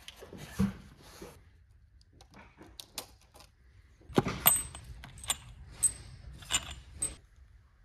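Steel cylinder head studs and washers clinking against each other as they are handled in their parts box: about six sharp metallic clinks with a bright ring, over the last three seconds, after quieter rustling and a soft knock.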